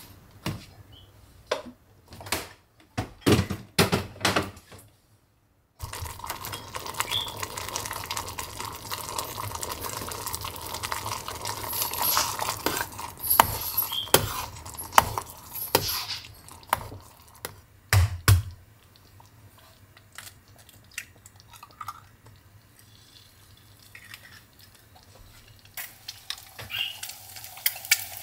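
Kitchen work sounds: a metal pot and utensils knocking and clinking, with a stretch of steady hiss and scraping in the middle. Near the end an egg starts sizzling in a frying pan.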